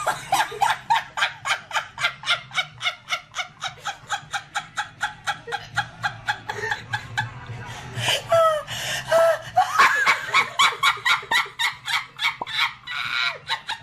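High-pitched laughter in a fast, steady string of breathy bursts, about five a second, with a short pause about seven seconds in.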